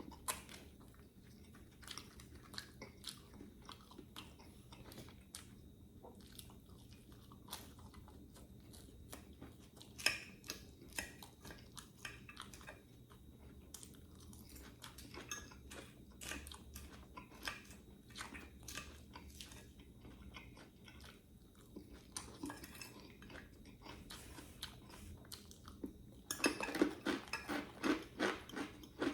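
A person chewing and crunching food close to the microphone, with many small crackly bites and chews. The crunching gets louder and denser near the end.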